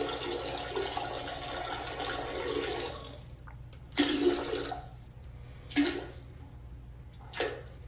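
Running water that stops about three seconds in, then comes in three short gushes about one and a half seconds apart.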